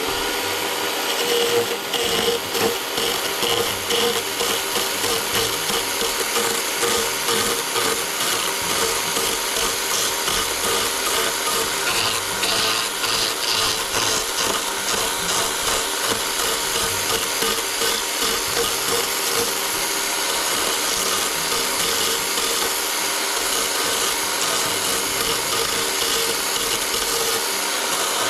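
Chainsaw cutting a notch into a spruce log, running steadily under load.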